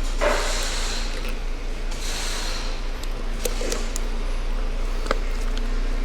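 Two short hisses in the first couple of seconds, then a series of small, sharp metallic clicks as a retaining clip is worked into its groove on a CV axle joint, over a steady hum.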